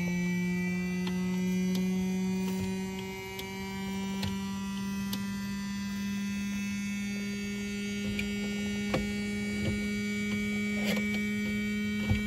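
Steady electrical hum with many overtones from the light aircraft's electrical or audio system before engine start, its pitch creeping slowly upward with a small step about three seconds in. A few faint clicks sound in the second half.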